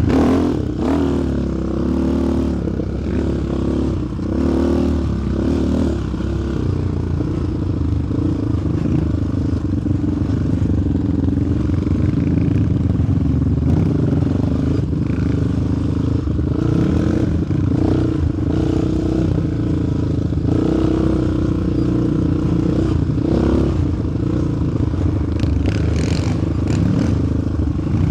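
Sport ATV's single-cylinder four-stroke engine running under way on a trail ride, its note rising and falling with the throttle. Scattered knocks and rattles from the machine run over rough ground.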